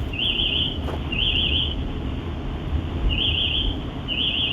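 Vivint security panel's fire alarm sounding in the three-beep temporal pattern: short, high, warbling beeps about a second apart, with a pause of about two seconds before the next set. A steady low rumble runs underneath.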